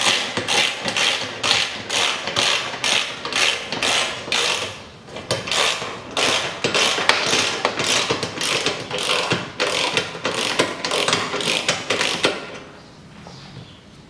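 Hand ratchet wrench clicking in steady strokes, about two a second, as a bolt holding a metal engine skid plate is tightened; the clicking stops about twelve seconds in.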